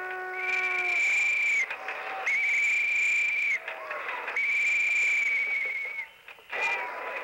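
A whistle blown in three long, steady, high-pitched blasts about two seconds apart.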